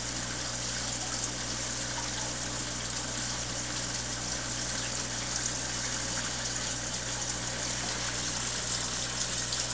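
Aquarium filter running: a steady rush of moving water over a low motor hum.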